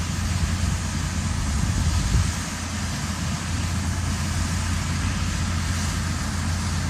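Steady drone of a tractor's diesel engine pulling a grain cart, heard with a strong low hum.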